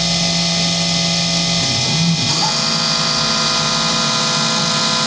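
Small CNC milling machine running a job: the spindle turning a 12 mm carbide cutter at 3000 RPM through a plastic block, over the steady whine of the axis motors feeding the cut. A little over two seconds in, the machine's low tone steps up in pitch as the move changes.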